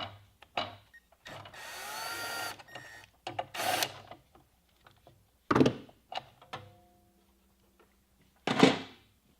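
Hands and tools working on a miter saw: a run of clicks and knocks, a steady whirr of about a second about a second in, and a sharp knock near the end.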